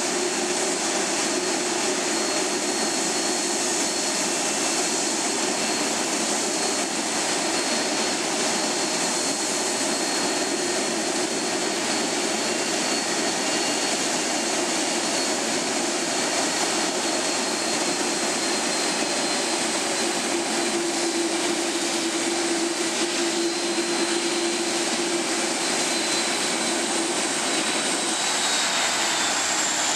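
Airbus A330-200's General Electric CF6 turbofans whining at taxi idle as the airliner rolls slowly onto its stand: a steady, loud jet rumble with a high whine on top. Near the end the whine starts to fall in pitch as the engines spool down.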